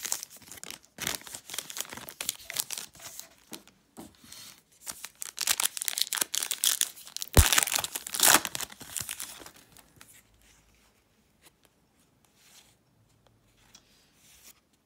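Foil wrapper of a Panini Contenders football card pack being crinkled and torn open: a run of crackling rips, loudest from about five to nine seconds in, with a sharp snap about seven seconds in. After that only a few faint taps.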